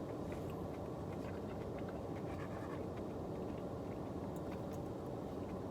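Car air conditioning blowing steadily in the cabin of a running car, with faint scattered small scratches and ticks over it.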